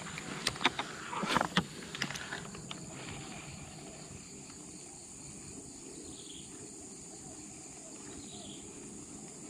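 Steady high-pitched drone of insects, with a few clicks and rustles in the first two seconds as a fishing rod and spinning reel are handled.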